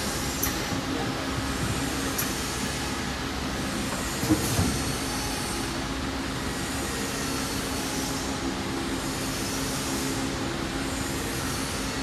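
Steady running noise of a flakes bag-in-box weighing and filling line, with its vibrating net weighing scale and roller conveyor, with a steady low hum. A single thud about four seconds in.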